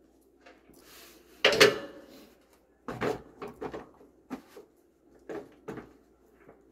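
Chainsaws being hung onto the frame of a tractor-mounted forestry cable winch: a series of knocks and clunks of the saws against the steel frame, the loudest about a second and a half in.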